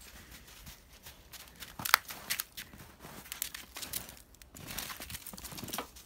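Footsteps crunching on snow in an irregular run of short crackly steps, with one sharp crack, the loudest sound, about two seconds in.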